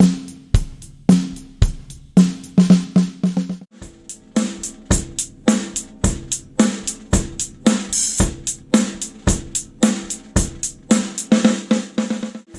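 A drum kit groove of kick drum, hi-hat and a fiberglass Monolith snare drum with a coated Remo Powerstroke head, steady hits several times a second. About four seconds in, the ring of the drums changes.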